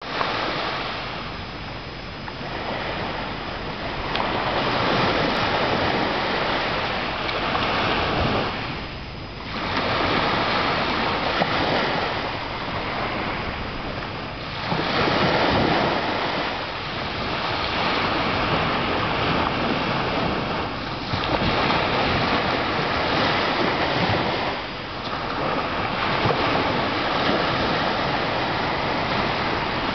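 Surf washing onto a sandy beach, a steady rushing that swells and eases every several seconds as the waves come in.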